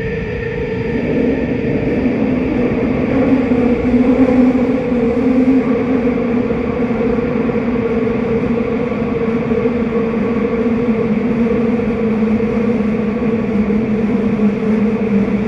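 Hanzomon Line subway train running through a tunnel, heard from inside the front car: a steady rumble of wheels on rail with a steady motor hum, growing louder over the first few seconds.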